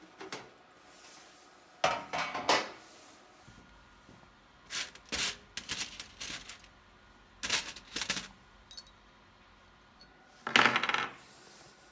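Pieces of silver clinking and knocking against one another as they are handled, in several short clusters of clinks, the loudest near the end.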